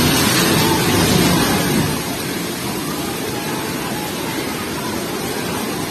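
A house collapsing into a flooded river: a heavy low rumble of the falling building and churning water for about the first two seconds, then the steady rushing of the swollen river and heavy rain.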